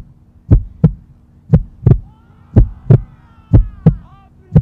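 Heartbeat sound effect: paired low thumps, a lub-dub about once a second, over a steady low hum. Faint rising and falling tones sound through the middle.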